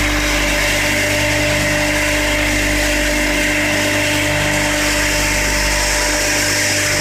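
JLMF-V800 wood sawdust machine running steadily, a loud even drone with a constant high whine.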